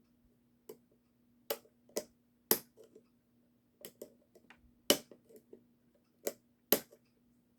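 Scattered sharp clicks and taps, about a dozen at uneven intervals, from hand tools and hard parts being handled while an animatronic toy's mechanism is taken apart. A faint steady hum runs underneath.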